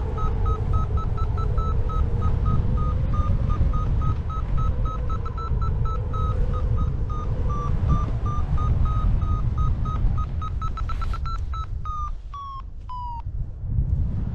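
A paragliding variometer beeping at one high pitch about four times a second, the beeps coming faster about eleven seconds in, then three short tones falling in pitch. The beeping tone signals that the glider is climbing. Heavy wind rumble on the microphone runs underneath.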